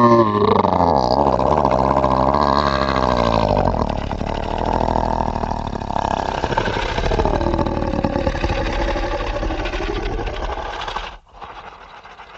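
Horror sound effect: the tail of a creature's roar sliding down in pitch, running into a long, low rumbling growl that cuts off suddenly about eleven seconds in, leaving a faint hiss.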